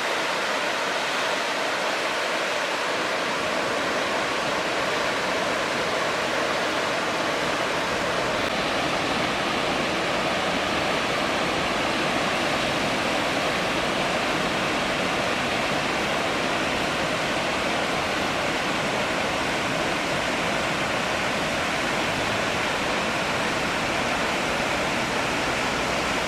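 Steady rushing roar of the Inchree Falls waterfall cascading down the hillside, unchanging throughout.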